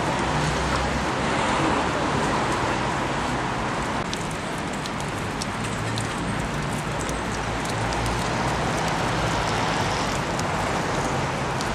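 Steady city traffic noise, a constant rumble and hiss, with a few faint ticks in the middle.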